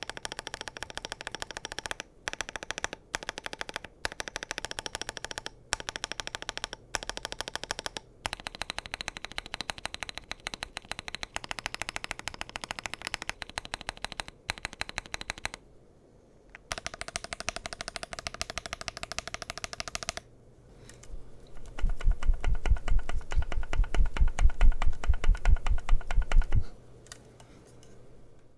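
Epomaker Magcore 87 mechanical keyboard with Kailh Box Inductive switches and PBT keycaps, typed on in very fast runs of keystrokes with short pauses. Near the end comes a louder, deeper burst of rapid, evenly repeated strokes before the typing stops.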